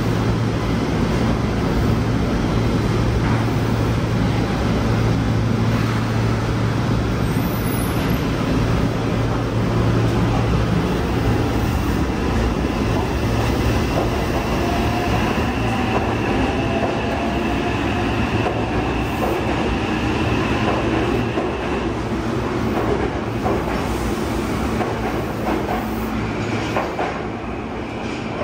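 Yokohama Municipal Subway Blue Line train with a Mitsubishi IGBT-VVVF traction inverter running through an underground station: a steady rumble of wheels on rail with a low hum, then the inverter whining in faint rising tones as the train pulls away. It fades slightly near the end as the train goes into the tunnel.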